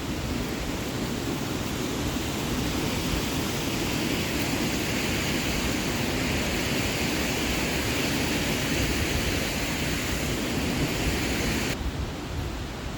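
Waterfall rushing as a steady, even roar of water. Near the end it turns slightly duller and quieter.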